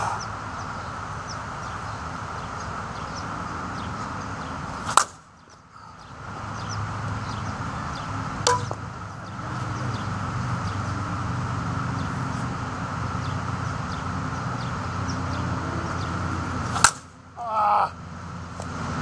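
Composite slowpitch softball bat cracking against a softball twice, about five seconds in and again near the end, with a fainter knock in between. A steady low outdoor hum runs underneath.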